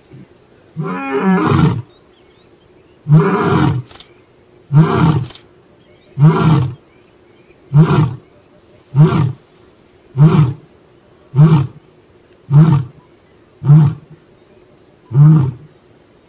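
Male African lion giving a full roaring bout. It opens with two long roars, then a run of shorter grunting roars at an even pace of a little over one a second, eleven calls in all.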